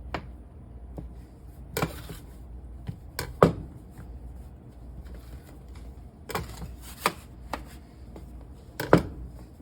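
Sharp, uneven knocks and taps of a blade cutting through biscuit dough and striking the board underneath, about nine over the stretch, a few in quick pairs.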